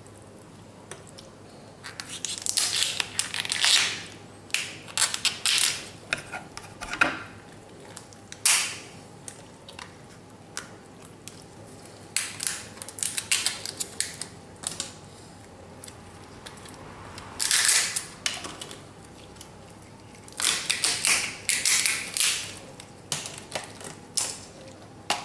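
Shells of par-boiled crayfish (rock lobster) tails being cracked and peeled off by hand: irregular bursts of crackling and snapping, in several clusters with short quiet gaps between.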